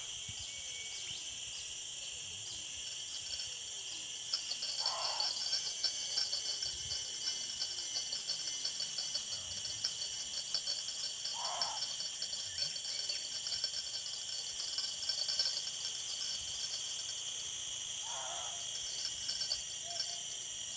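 Insect chorus of crickets trilling steadily and high-pitched. A short, lower call sounds three times, about six or seven seconds apart.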